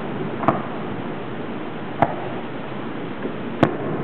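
Fireworks bursting: three sharp bangs about a second and a half apart, over a steady background noise.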